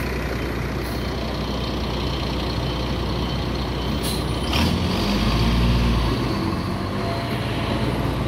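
Diesel engine of a Mercedes-Benz intercity coach running as the bus pulls past close by, its rumble swelling about five seconds in as it drives off. A short hiss of air, typical of air brakes, about four and a half seconds in.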